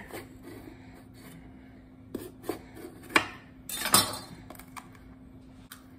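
Knife and bell pepper on a cutting board: four short knocks between about two and four seconds in, the last the loudest with a brief scrape. A faint steady hum runs underneath.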